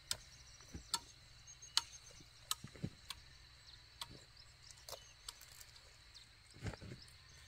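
Quiet field ambience: a steady high insect drone with faint bird chirps, broken by sharp ticks about once a second and a few soft thumps.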